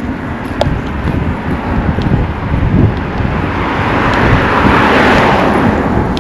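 Wind buffeting the microphone, with a vehicle passing close by: its noise swells about halfway through, is loudest near the end, then starts to fade.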